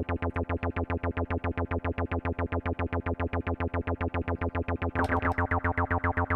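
Roland 303-style bass synthesizer playing a fast, even run of repeated low notes with the cutoff all the way down and the envelope mod and resonance all the way up, so each note has a quick falling filter sweep. The sweeps grow stronger from about five seconds in.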